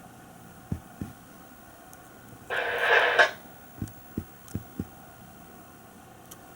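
A short burst of sound from a scanner radio tuned to a railroad frequency, lasting under a second about two and a half seconds in, over a low background hiss. Several soft, low thumps come before and after it.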